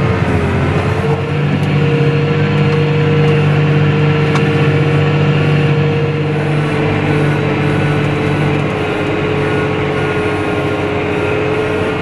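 John Deere 6210R tractor's 6.8-litre six-cylinder diesel running steadily under load while pulling a five-furrow plough, heard from inside the cab, with a steady whine over the engine note.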